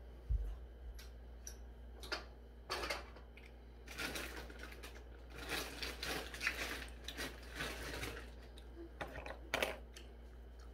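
Scattered clicks, light knocks and rustling of someone handling and moving objects while searching for something, denser through the middle few seconds.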